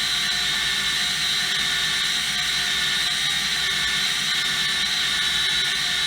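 Electric drill running at a steady speed, spinning a polyurethane motor-mount bushing on a bolt while sandpaper is held against it to smooth the bevelled edge. A steady motor whine with a sanding hiss over it.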